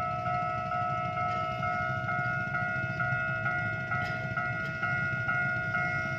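Level crossing warning bell ringing in a steady, rapid ding-ding, about two strikes a second, over a low rumble.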